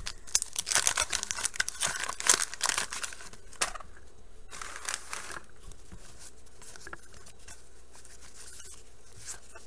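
The paper wrapper of a 1989 Bowman wax pack is torn open and crinkled for the first three and a half seconds. It is followed by a short rustle about five seconds in, then softer scattered clicks as the baseball cards are handled.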